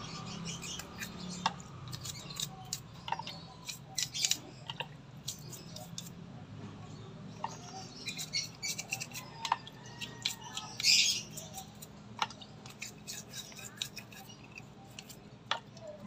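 Small brush scrubbing mud off a scooter's front disc brake caliper around the piston: irregular short scratchy strokes and clicks, with a louder scrape about eleven seconds in.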